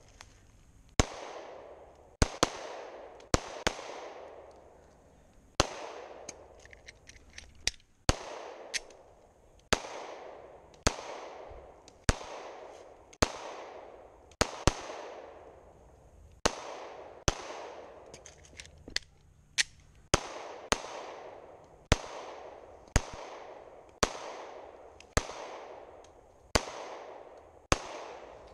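Two 9mm Glock pistols fired in a steady string of about thirty shots, roughly one a second and sometimes two in quick succession. Each shot is followed by a short fading echo.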